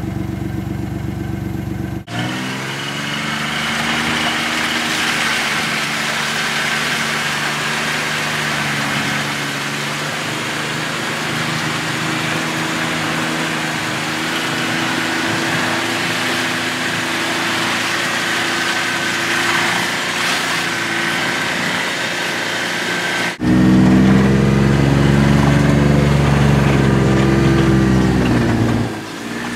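Off-road vehicle's engine running steadily while it drives through a deep flooded crossing, with water splashing around it. The sound changes abruptly about two seconds in and again near the end, where the engine is louder.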